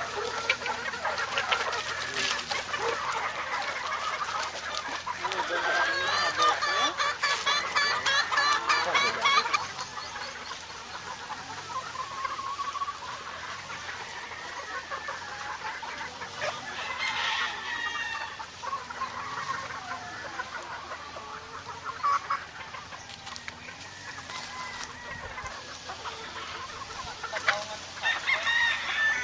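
A flock of chickens clucking and calling over one another, with roosters crowing now and then; the chatter is busiest and loudest from about six to nine seconds in.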